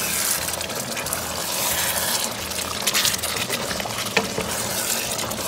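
Thick chicken curry bubbling and spluttering in a steel pot as a spatula stirs it: a steady wet crackling hiss with many small pops. Most of the water has cooked off and the masala is cooking down.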